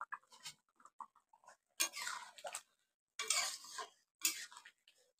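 Flat metal spatula stirring thick, wet chicken curry in an aluminium kadai: three short squelching, scraping strokes through the gravy about two, three and a half and four and a half seconds in.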